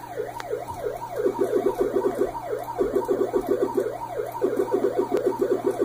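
A siren sweeping up and down in pitch, switching between slower swoops and a fast warble several times, over a steady low hum.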